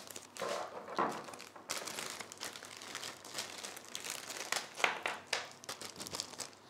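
Clear plastic bag crinkling and rustling in the hands as cables are pulled out of it, in irregular crackles.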